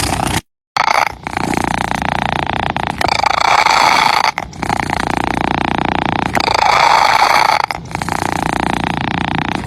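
Domestic cat purring close to the microphone, a continuous rumble that swells and eases in alternating stretches of about a second and a half as the cat breathes in and out. It cuts out completely for a moment about half a second in.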